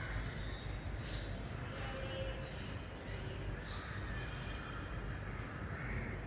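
Steady low background rumble with scattered short, high-pitched bird calls.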